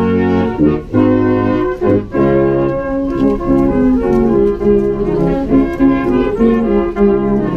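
Brass band playing a slow tune in held chords that change every half second or so.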